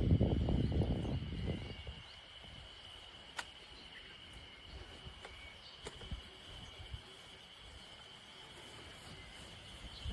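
Steady high-pitched insect chirring, with a low rustling rumble in the first second and a half and a few faint clicks.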